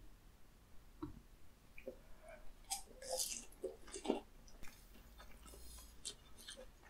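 Close-miked chewing of a battered, deep-fried chili pepper (gochu twigim), with soft crisp crunches of the batter and wet mouth sounds. The crunches cluster about halfway through.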